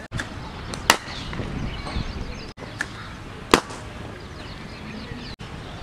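Two sharp cracks of a cricket bat striking the ball, about a second in and again about three and a half seconds in.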